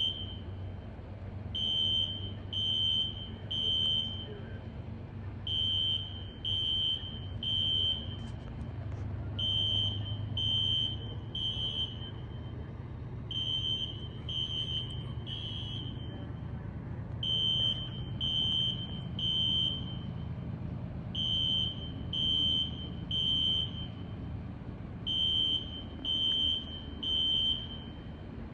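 Activated fire alarm beeping in the temporal-three evacuation pattern: three short high beeps, a pause, and the group again about every four seconds. A steady low engine rumble runs underneath.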